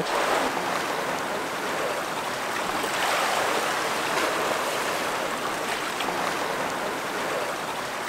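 Seawater lapping and washing against shoreline boulders: a steady rush of small waves.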